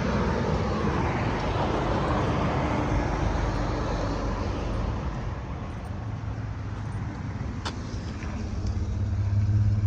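A motor running steadily with a low hum under a broad rushing noise; the hum grows louder in the last few seconds.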